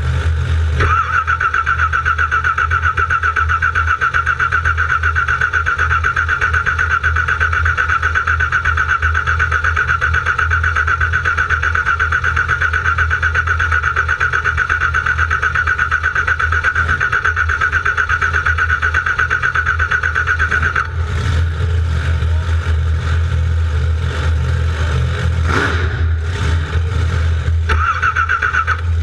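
Car starter motor cranking the engine at length without it catching, a steady whine with fast rhythmic pulsing; it stops about two-thirds of the way through and cranks again briefly near the end. A steady low hum runs underneath throughout.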